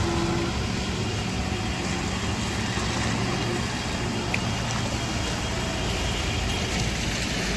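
Steady low rumble of vehicle engines at low speed: a Mahindra Bolero SUV driving slowly past close by, with trucks behind it.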